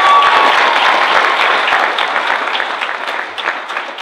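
Audience applauding, the clapping slowly dying down. A high held note from someone in the crowd fades out in the first half second.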